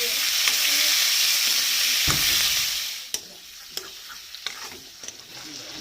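Food frying in hot oil: a loud, steady sizzle that dies down about three seconds in. A few sharp clicks follow, like a utensil tapping the pan.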